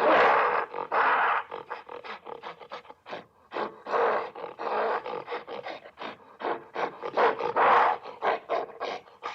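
An animal's loud roaring calls, three long ones with quick short breaths or grunts in between.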